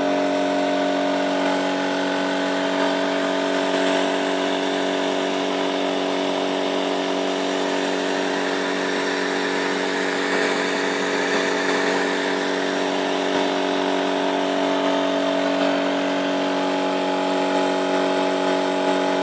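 3D-printed model turbofan spinning on compressed air, with the air compressor that feeds it running: a steady drone made of several constant tones over a hiss of air.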